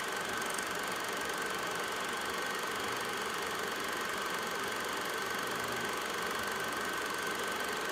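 Steady background hiss and hum with a thin, constant high whine; nothing starts, stops or changes.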